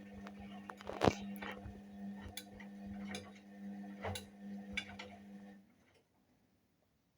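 Indesit WIUL83 washing machine running a 30°C daily wash: the drum motor hums steadily while the laundry tumbling in the drum gives irregular clicks and knocks. Motor and drum stop abruptly about six seconds in, the pause between tumbling turns.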